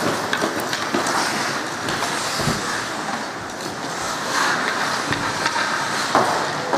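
Ice hockey play: skate blades scraping across the ice and a few sharp clacks of sticks and puck, over a steady rushing hiss.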